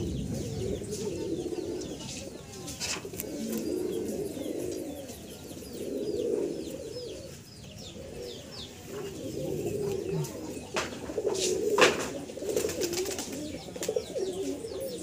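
Domestic pigeons cooing continuously in a loft, a low wavering murmur of many birds, with short high chirps over it. A few sharp clicks break in, the loudest about twelve seconds in.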